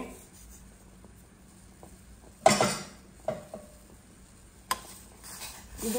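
Steel kitchenware clanking: one sharp metallic clank with a brief ring about two and a half seconds in, a lighter knock just after, and a small click near the end.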